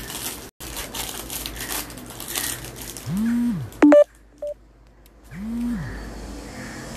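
Smartphone going off during a live stream: two half-second vibration buzzes about two seconds apart, each rising and falling in pitch, with a short loud electronic beep and a smaller second beep between them. Crackly handling noise of the phone comes before the first buzz.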